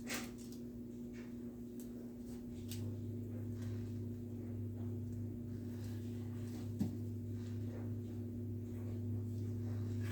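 Steady low machine hum, with a deeper hum coming on about two and a half seconds in, and a single light click near seven seconds.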